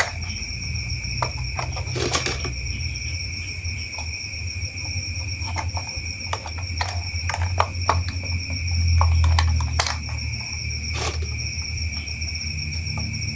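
Irregular sharp plastic clicks and light knocks from toy parts being handled, over a steady high-pitched whine and low hum.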